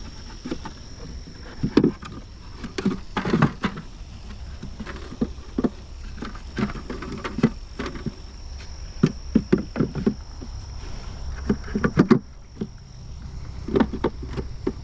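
Irregular wooden knocks and clunks of hive boxes and frames being handled during a nuc install, over a steady rumble of wind on the microphone.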